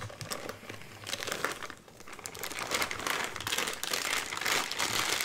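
Plastic bag of brownie mix crinkling as it is squeezed and shaken to empty the powder into a metal mixing bowl, with a short lull about two seconds in.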